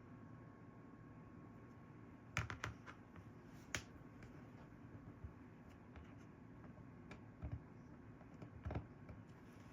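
Scattered light clicks and taps of small tools and parts on an opened iPhone during a battery swap: a quick cluster about two and a half seconds in, a sharper click near four seconds, and a few more near the end.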